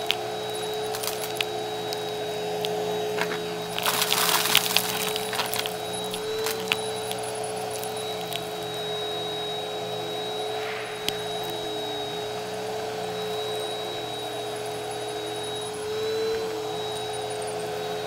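Bissell Helix upright bagless vacuum cleaner running on carpet, its motor giving a steady whine. Small debris crackles as it is sucked up, with scattered single clicks and a dense burst of crunching about four seconds in.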